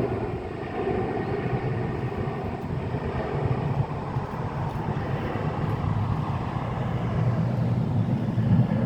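Jet airliner engines making a steady low rumble, swelling slightly near the end.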